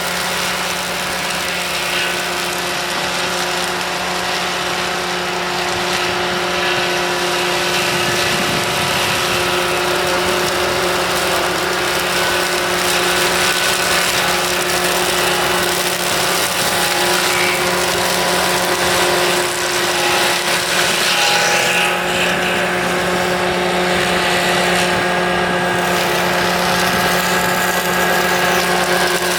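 Pfanzelt Moritz fr 75 forestry tool carrier's engine running steadily under load, with a steady machine whine.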